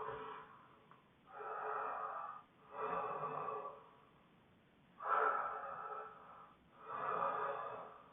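Snoring during sleep: noisy breaths about a second long, coming in pairs with a short gap between them, with quiet pauses between the pairs.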